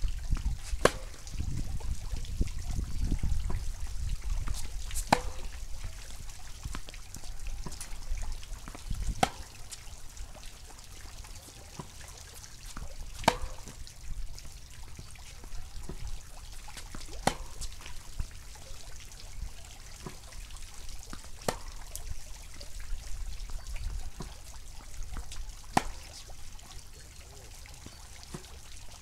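Tennis racket, a Yonex VCORE Tour G, striking the ball in a steady baseline rally: a sharp pop about every four seconds, with fainter hits and bounces in between. A low wind rumble on the microphone runs underneath, strongest in the first few seconds.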